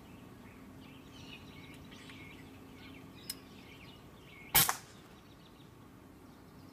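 A single shot from an FX Royale pre-charged pneumatic air rifle about four and a half seconds in, a sharp crack that is by far the loudest sound. Before it, starlings chatter in short squeaky notes.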